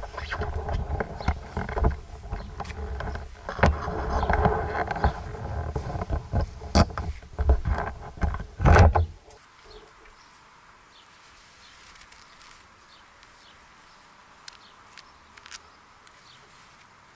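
A motorcycle engine running with irregular knocks and rustling over it, cut off suddenly about nine seconds in. After that there is a quiet background with a few faint bird chirps.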